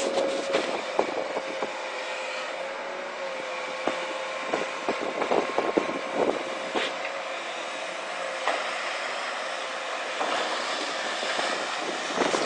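Komatsu long-reach excavator running as it digs underwater from a pontoon, a steady engine and hydraulic drone with a steady whine. Several sharp knocks come about halfway through.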